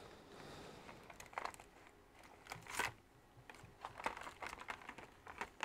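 Plastic laptop charger tips clicking and rattling in a plastic tray, with cables rustling, as gloved hands rummage through them. Irregular light clicks, the loudest about three seconds in and a quick run of small ones near the end.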